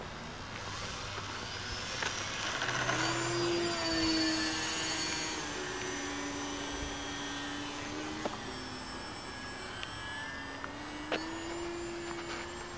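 Electric RC aerobatic plane's motor and propeller whining as it takes off and flies. The pitch climbs sharply about three seconds in, then drops and wavers as the throttle changes.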